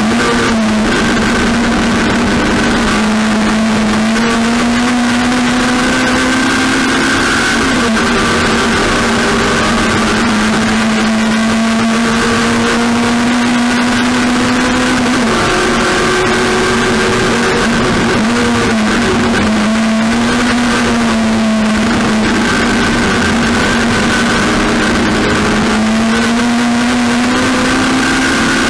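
Race car engine running hard and continuously, its pitch climbing slowly and then dropping sharply about six times, as the car accelerates and the driver shifts or lifts.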